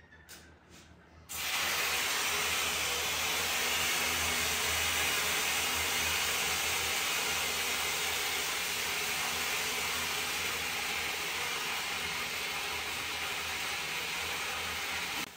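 Water running hard from a hose through a tube into a balloon in a toilet bowl: a steady loud hiss that starts abruptly about a second in and cuts off suddenly near the end.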